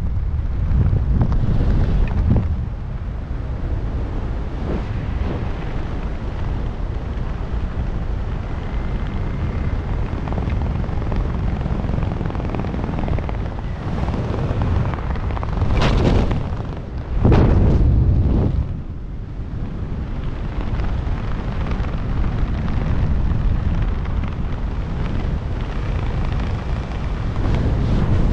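Wind rushing over a helmet-mounted camera's microphone under an open parachute: a steady low rumble with two stronger gusts a little past halfway.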